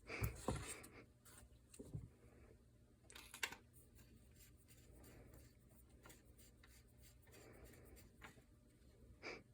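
Faint rubbing and handling noises with a few light clicks as gear is handled.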